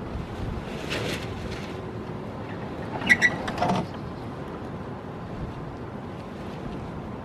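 Steady wind buffeting the microphone, with two short harsh animal calls about three seconds in, the first high and the second lower.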